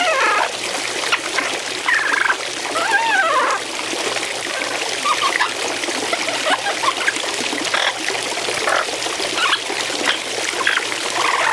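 Fountain water trickling and splashing steadily as a blue-headed Amazon parrot bathes in it, with the parrot's short calls over the water, one rising-and-falling note about three seconds in.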